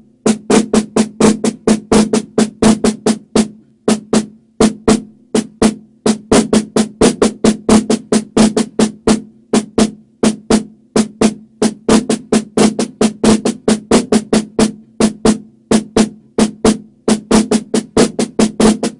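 Drumsticks playing Swiss Army triplets (a flam followed by two taps, repeated) on a drum with a ringing pitch. Sharp strokes run on evenly in repeating groups.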